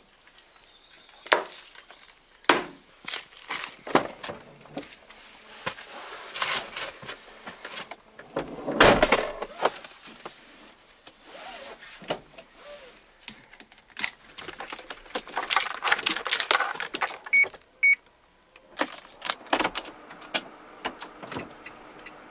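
Handling noises in and around a Renault Kangoo Z.E. electric van: a string of clicks, knocks and rattles, with the loudest burst about nine seconds in and a seatbelt being pulled and fastened. Two short beeps come about seventeen seconds in, then light regular ticking over a steady background near the end.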